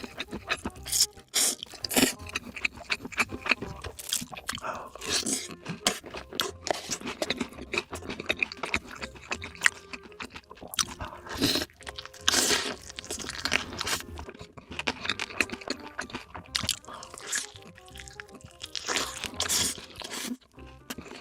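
Close-miked eating of sausages: repeated crunchy bites and chewing in an irregular run of sharp crunches, with music underneath.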